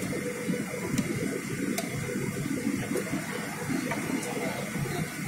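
Jet airliner's turbofan engines and airflow heard inside the passenger cabin: a steady, even noise with a faint constant hum.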